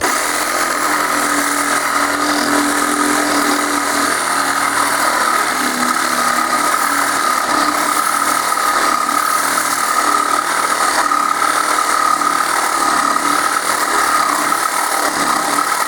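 Cordless reciprocating saw (Sawzall) running steadily, its blade cutting through the steel air tank of a gas-powered air compressor with a high metallic whine. It starts suddenly at the beginning.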